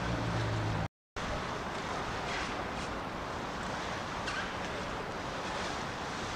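Steady rushing outdoor noise of wind and water, with a low hum under the first second. The sound drops out completely for a moment just before a second in, then the rushing carries on.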